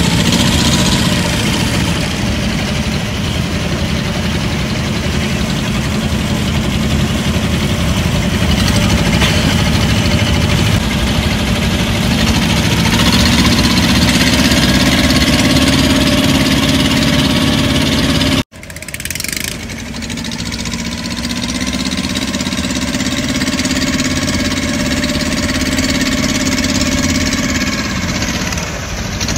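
Engine of a small wooden river tour boat running steadily as the boat motors along. About two-thirds of the way through the sound cuts out abruptly for a moment, then the engine comes back.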